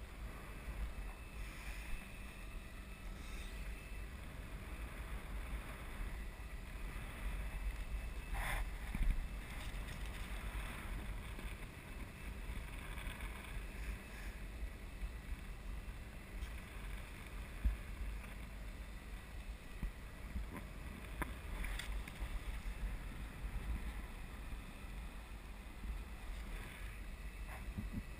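Wind buffeting a camera microphone on a parasail harness high in the air: a steady low rumble, with a couple of faint knocks.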